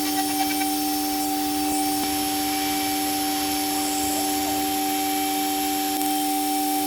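CNC router spindle running steadily while milling an aluminium mold, a constant whine with a steady rushing noise.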